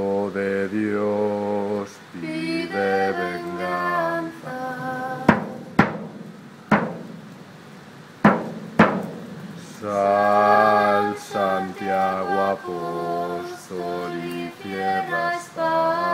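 A drunk man singing unaccompanied in long held notes. In a break in the singing, about five to nine seconds in, come about five sharp knocks, and then the singing resumes.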